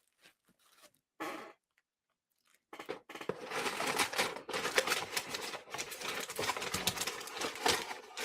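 Packaging being handled and unwrapped: a dense, crackly rustling that starts about three seconds in, after a near-silent stretch with one short rustle.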